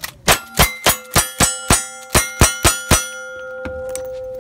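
Rapid string of about ten rifle shots from a lever-action rifle, each one answered by the clang of a steel target ringing. The last plate's ring hangs on and fades after the shooting stops about three seconds in.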